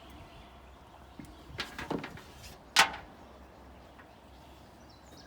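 Bait bucket and gear being handled: a few dull knocks about a second and a half in, then one sharp clack near the middle.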